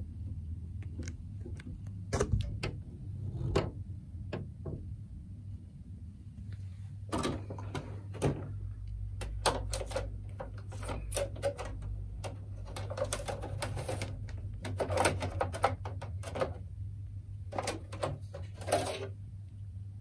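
Plastic clicks, knocks and rattles as the snap-in mesh air filter of a split air conditioner's indoor unit is handled and slid out. The clatter comes in clusters, busiest in the second half, over a steady low hum.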